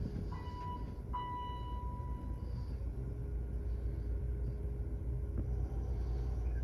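Elevator hall chime of a ThyssenKrupp hydraulic elevator sounding twice, a short ding then a longer ringing one, as the down-direction lantern lights for a car going down. A steady low rumble sits underneath.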